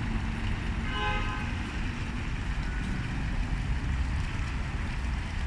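Steady rush of fountain water, mixed with a low rumble of wind on the microphone. A brief pitched tone sounds about a second in.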